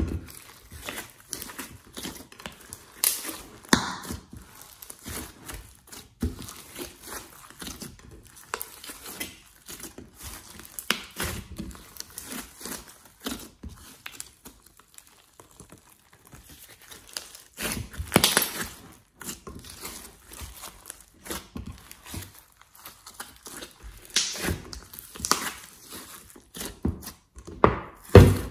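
A large mass of fluffy slime being squeezed, kneaded and pulled apart by hand in a glass dish: irregular sticky crackles and pops, with a few louder bursts about two-thirds of the way through and again near the end.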